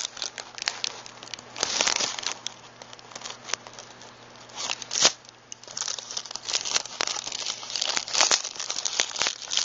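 Glossy plastic and paper wrappers of firecracker packs crinkling and rustling as they are handled, with irregular sharp crackles and the loudest one about halfway through.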